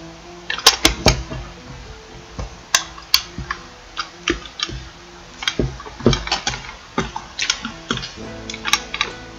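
Metal clicks, knocks and scrapes of a Photosniper photo-gun being handled and its long lens fitted into the pistol-grip stock, in irregular clusters, over quiet background music.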